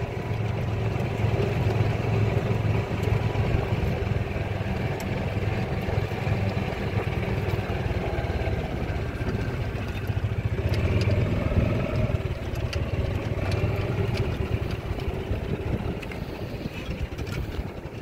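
Golf cart driving, a steady low motor hum with rolling noise and occasional light clicks and rattles. It eases off near the end as the cart slows.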